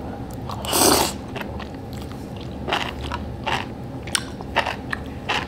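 A person eating Samyang spicy noodles close to the microphone: one short slurp about a second in, then chewing with a string of short mouth clicks.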